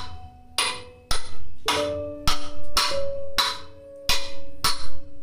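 Hammer blows on a steel sleeve driving a bearing down onto an electric motor's shaft: about ten sharp metallic strikes, roughly two a second, each ringing on until the next.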